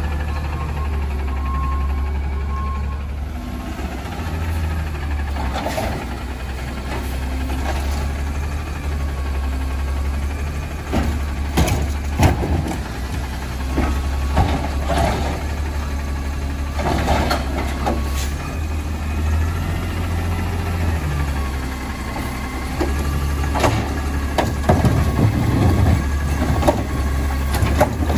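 Natural-gas-powered automated side-loader garbage truck idling with a steady low hum, with scattered clunks and clatter as its arm handles recycling carts, busier toward the end.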